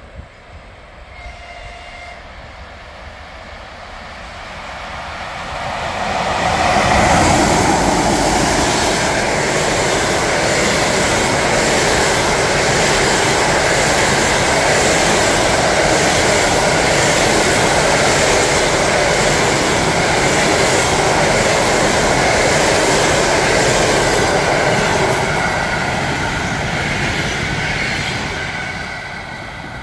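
Express passenger train hauled by a ChS7 electric locomotive passing at speed. Wheel-and-rail noise swells over the first few seconds into a loud, steady rush with a clatter of wheels over rail joints as the coaches go by, then fades near the end.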